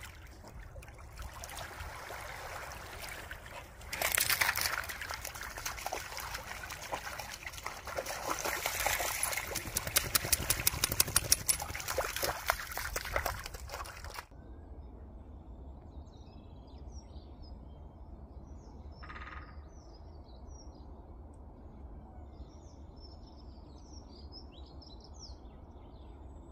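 Lake water lapping and splashing over shore stones, louder from about four seconds in, with a run of quick splashes a little past the middle as a cocker spaniel puppy comes down to the water's edge. It cuts off suddenly about halfway through, leaving birds chirping over a faint steady low hum.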